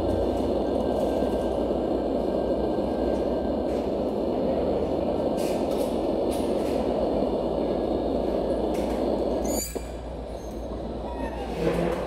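A Timex T618T clock radio playing its built-in nature-sound setting 4: a steady rushing noise from the small speaker. It cuts off abruptly about ten seconds in, and a click follows near the end as the sound setting is changed.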